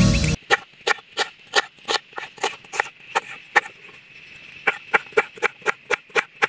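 Knife slicing a red onion on a wooden board: sharp knocks of the blade striking the wood, about three a second, with a short pause about four seconds in.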